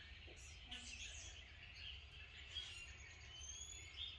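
Faint bird chirps, with a couple of thin rising whistles about three seconds in, over a low steady hum.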